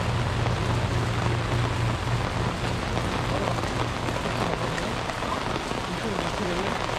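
Steady rain falling on the street as an even patter, with a low hum underneath that fades about halfway through.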